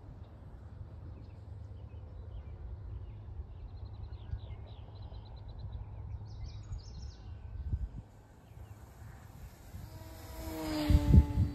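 Electric RC model airplane passing close near the end, its motor and propeller hum swelling and dipping slightly in pitch as it goes by, with a thin high whine above it. Wind rumbles on the microphone throughout, and birds chirp faintly in the middle.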